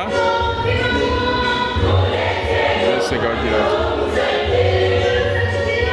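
Mixed choir of boys and girls singing together in harmony, holding long sustained notes.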